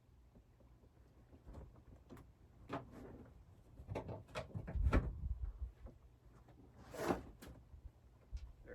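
Handling sounds of a truck bed tent being set up: nylon tent fabric rustling, with scattered knocks and clicks as a tent pole is seated in its corner pocket and a strap is clipped on. They grow busier about halfway through.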